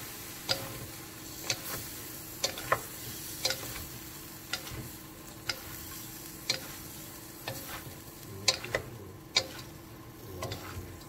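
Vegetables and seafood sizzling in a wok as two wooden spatulas toss and stir them. Sharp ticks come through about once a second, with a few extra knocks in between.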